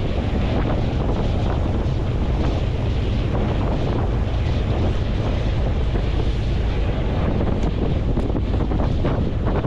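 Wind buffeting the microphone over the steady rush of water and engine of a passenger ferry under way at sea.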